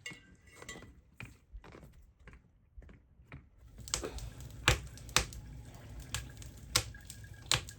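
Knife chopping onions on a cutting board: light irregular taps at first, then sharper chops every half second to a second in the second half.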